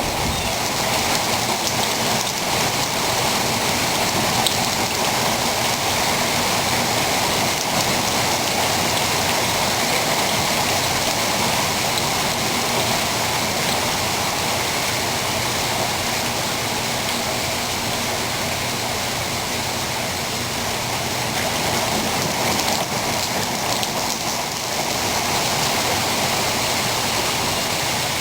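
Steady rain from a tropical-storm rain band, falling as a continuous, even hiss.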